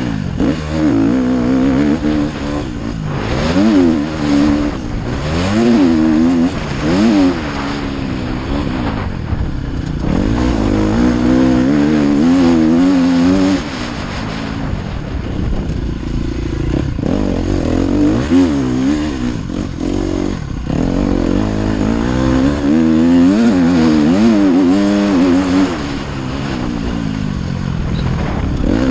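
Motocross bike engine, heard from on the bike, revving up and easing off again and again as the rider works the throttle and gears around a dirt track, with a few brief lulls.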